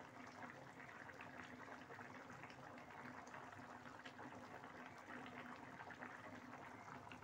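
Egg and potato curry gravy bubbling faintly at a simmer in a pot, a soft steady fizz of small bubbles.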